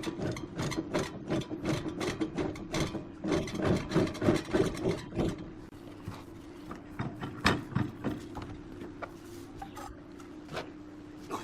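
Wood lathe running with a steady motor hum while a turning tool scrapes against the spinning wood in quick repeated strokes, several a second; about halfway through the scraping thins out to a few scattered scratches.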